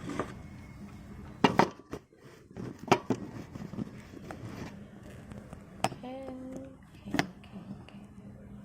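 Small hard objects being handled and set down, giving several sharp clicks and knocks, the loudest a double knock about a second and a half in. A short pitched hum-like sound lasts about half a second, around six seconds in.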